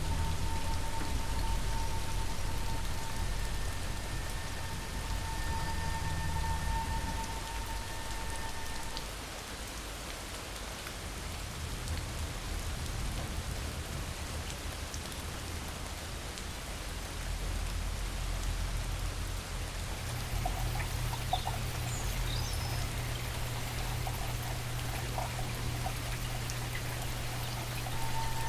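Steady patter and splash of falling water, like rain, from the water features of a large indoor rainforest vivarium. A steady tone sounds over it for roughly the first third, and a low hum comes in about two-thirds through.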